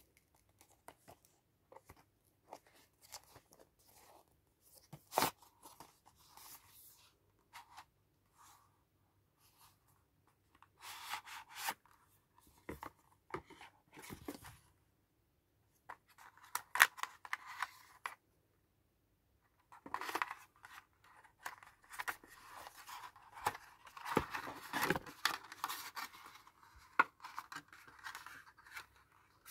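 Hands handling a cardboard earphone box and its black plastic insert tray, pulling the tray out and working the earbuds loose: scattered clicks and taps with bursts of rustling and scraping, most continuous in the last third.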